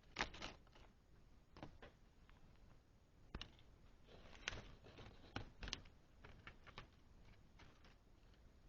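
Faint, irregular clicks and knocks with light rustling from small objects being handled, about a dozen sharp taps spread unevenly, the loudest just after the start.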